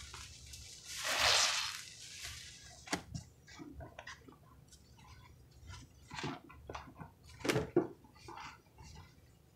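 Soapy sponges squeezed and hands pressing into thick pine-cleaner foam in a basin: wet squishing and crackling of suds, with a long squelch about a second in, a sharp click near three seconds, and more squelches later.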